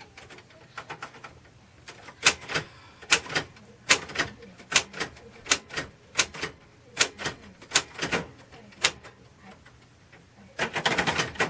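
Royal Safari manual typewriter being typed on: single sharp key strikes at an uneven pace, about two a second, then a quicker run of clatter near the end.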